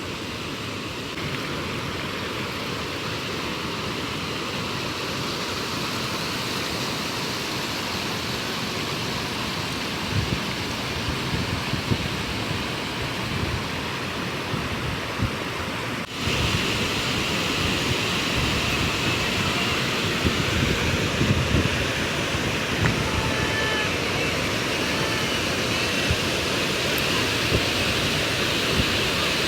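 Waterfall with water falling steadily, heard as a continuous rushing hiss, with wind buffeting the microphone. It steps up louder and hissier about halfway through.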